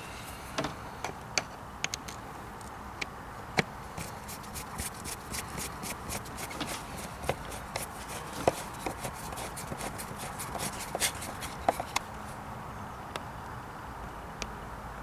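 Clicks and taps of hand tools on car parts as bolts are screwed back in, with a dense run of quick clicking through the middle.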